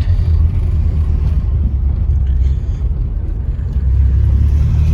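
Nissan 300ZX's V6 engine and road noise heard from inside the cabin while driving: a steady low drone. No knock is heard; the knocking came from the catalytic converter, which has been dealt with.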